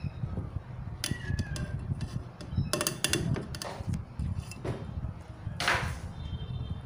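Scattered knocks and clicks of a small plastic portable blender being handled, with a short scraping rustle near the end; the blender motor is not running.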